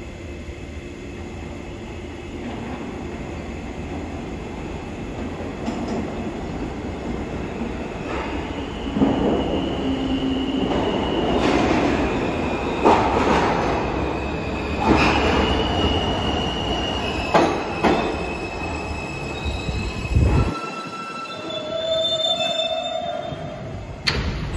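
New York subway E train of R160 cars pulling into the station and braking. Its rumble builds, then the wheels squeal with sharp clacks as it slows, and the rumble drops away as the train stops about twenty seconds in. A few short high tones follow.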